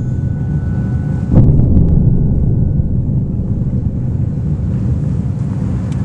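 Deep rumbling drone from the projection show's electronic soundtrack, with a booming hit about a second and a half in, after which the rumble slowly dies down.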